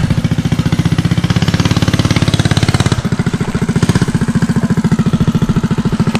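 Mini bike's small engine running steadily close by, its fast even firing pulses shifting slightly in pitch about three seconds in.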